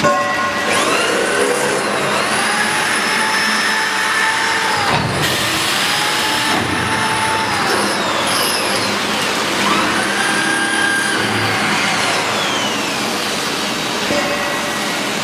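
Geocell welding machine running: a steady mechanical noise with a motor whine that rises, holds and falls away three times, one cycle after another.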